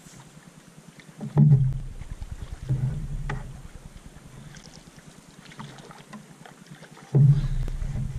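Paddle strokes on a Clipper canoe: three strokes, about a second and a half in, near three seconds and about seven seconds in. Each is a swish of water along the hull with small knocks and drips, fading between strokes.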